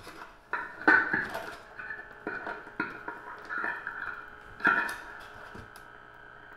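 Structure-borne physical feedback between piezo contact microphones and loudspeaker driver cones: irregular clicks and knocks, each with a short ringing feedback tone, as the motor-pulled cables move the discs against the speakers. The loudest strikes come about a second in and just before five seconds, and it settles to a faint ringing near the end.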